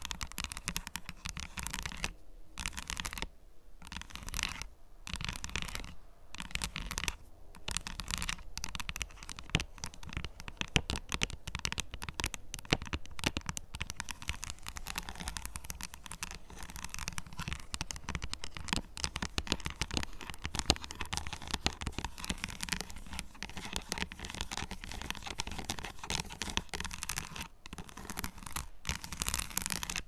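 Fingernails scratching rapidly on a bar of dark chocolate, close to a microphone. The strokes come in short bursts with brief pauses over the first several seconds, then run on almost without a break.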